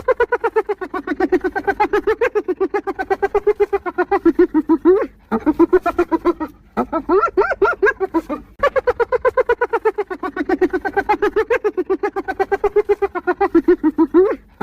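Spotted hyena giggling: long bouts of rapid, staccato laughing notes, about nine a second, broken by brief pauses.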